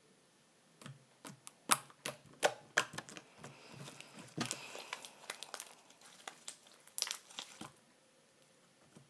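Slime being squeezed and poked by hand, giving a run of sharp crackling pops and clicks as air pockets burst. The clicks start about a second in, crowd together midway, and stop shortly before the end.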